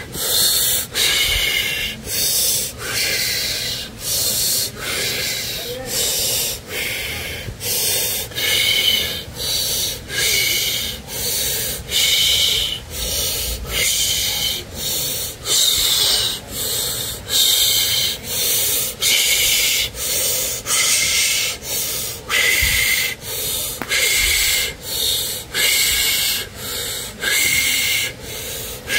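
A man breathing rapidly and forcefully in and out through his mouth in a continuous cycle, driven from the diaphragm. Each breath is a loud rushing hiss under a second long, with barely a gap before the next, in a quick, even rhythm.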